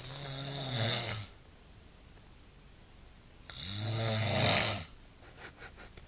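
A man snoring: two snores about three and a half seconds apart, each lasting a little over a second, a low buzz with a breathy hiss over it.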